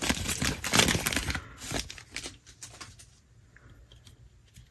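A foil trading-card pack wrapper crinkling and tearing as it is opened, for about the first second and a half, then a few faint ticks of handling.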